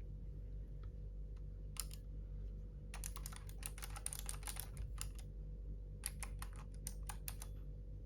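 Typing on a Keychron K3 mechanical keyboard with clicky blue switches: a few single keystrokes, then a quick run of clicks about three seconds in and shorter bursts later, over a steady low hum.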